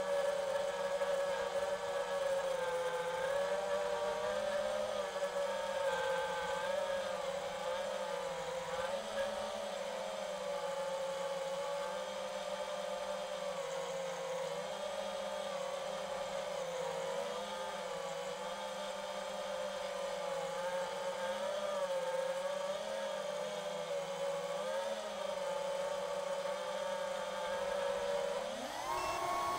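FPV racing quadcopter's motors and propellers whining at a steady, slightly wavering pitch as it flies low; near the end the pitch climbs sharply as the throttle is punched and the drone climbs.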